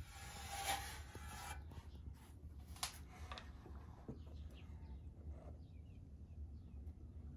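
A brief rustling noise in the first second and a half and a sharp tap a little later, then faint bird chirps in the background.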